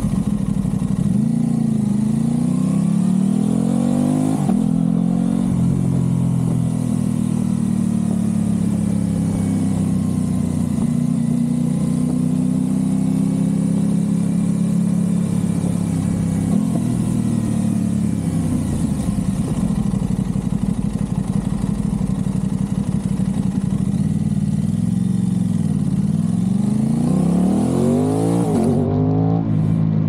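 Aprilia RS660 parallel-twin engine heard through a Mivv Delta Race exhaust, accelerating under load. Its pitch rises through each gear and drops at an upshift about four and a half seconds in and again near the end, with a dip and a fresh pull in between.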